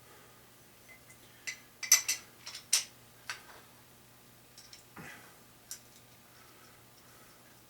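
Several sharp metallic clinks and taps of tools against engine parts, bunched together a couple of seconds in, then a short scrape about five seconds in, over a faint steady hum.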